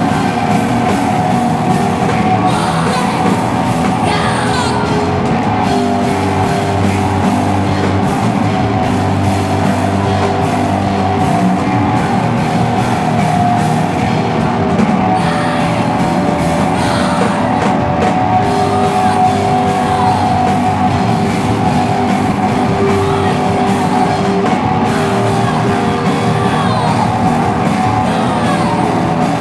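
Noise rock band playing live: loud, dense guitars hold long sustained notes over the rhythm section, with yelled singing on top.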